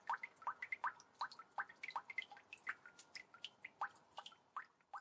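Water droplets dripping into water: a quick, irregular run of small plinks, about four a second, each a short tone sliding upward in pitch.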